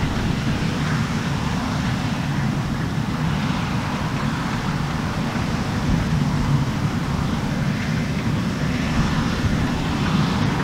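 New Holland CR10.90 combine harvester working through standing oilseed rape: a steady drone from its diesel engine and threshing machinery, with a low rumble under it.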